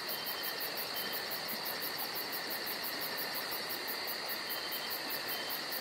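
Insects chirping in a steady high chorus, with an even fast pulse of about five beats a second.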